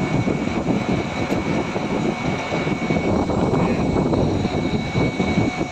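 Air conditioner running: compressor and condenser fan giving a steady whir, with a faint high-pitched whine held over it.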